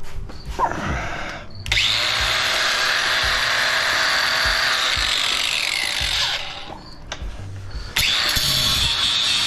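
Power saw cutting through scrap copper, running in two bursts: a few light knocks, then a steady cut of about four seconds, a brief stop, and the saw starting again near the end.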